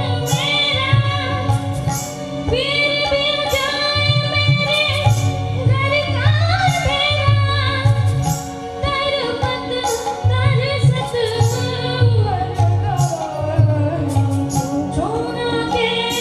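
A boy singing a melodic song into a microphone over instrumental accompaniment with a steady drum beat, his voice gliding between long held notes.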